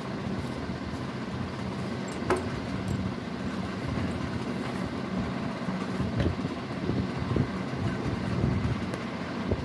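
Cotton fabric being handled and rustling close to the microphone, over a steady low hum, with a single click about two seconds in.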